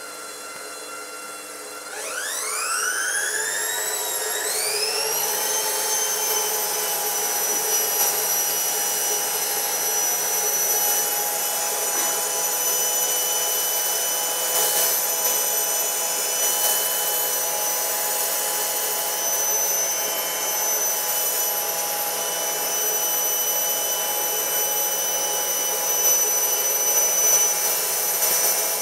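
An electric motor switches on about two seconds in over a quieter steady hum. Its whine climbs quickly in pitch over a couple of seconds, then settles into a steady high whine that keeps running.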